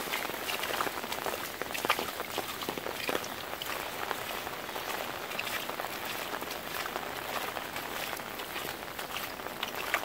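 Rain falling on a flooded concrete pavement, with shallow water running across it: a steady hiss with many small splashes throughout.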